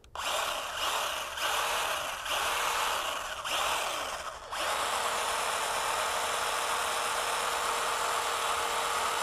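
Craftsman 20V 6-inch cordless pruning chainsaw running free with no load. Its motor and chain spin up and slow down in five short trigger bursts, then run steadily from about four and a half seconds in. The bar and chain have just been hand-oiled, and the chain is run to spread the oil around the bar and sprocket.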